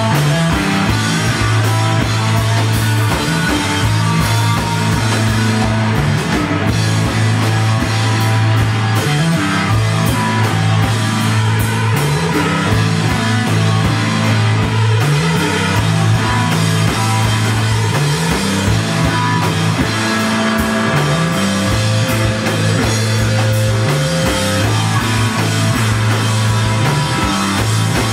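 Loud live rock band playing with distorted guitar, bass and drum kit, a repeating bass riff moving between a few notes under steady drumming.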